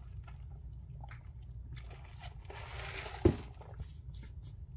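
A person sipping and swallowing a drink close to the microphone, with small clicks and one louder low thump about three seconds in.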